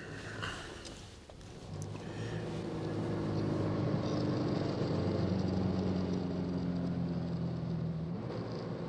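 A few light clicks, then a car engine running steadily, growing louder over the first few seconds as the car drives off.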